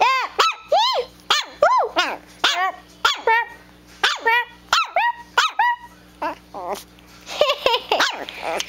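Chiweenie (Chihuahua–dachshund) puppy, a month or two old, yapping in a rapid string of short, high-pitched barks, each rising and falling in pitch, turning rougher and noisier near the end.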